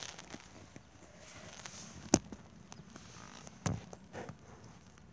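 A handful of short sharp clicks and taps over faint background noise, the loudest about two seconds in and a small cluster a little later.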